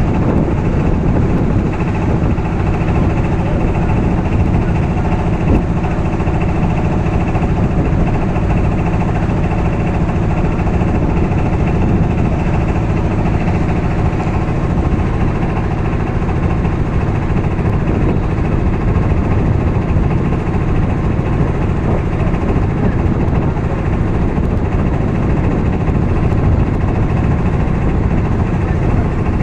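Engine of a motorised wooden boat running steadily under way, a loud, constant drone with no change in pitch.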